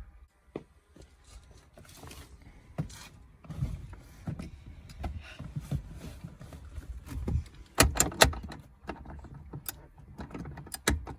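Hand tools and car interior trim being handled: scattered clicks, knocks and rustling, with two sharp clicks about eight seconds in.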